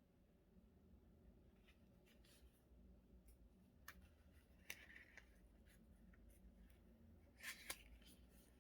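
Near silence with faint scattered ticks and two brief rustles, about five seconds in and near the end, from paper and stickers being handled in close-up craft work.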